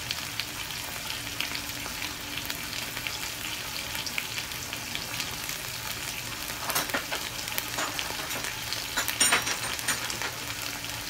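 Chicken breast searing in hot coconut oil in a frying pan: a steady sizzle with fine crackling, with a few sharper clicks in the second half.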